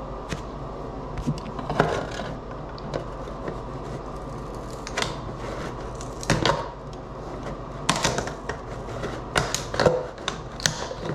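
A metal hand tool scraping and prying around the edge of a solar post light cap, giving irregular clicks and scrapes, the sharpest near the middle and toward the end.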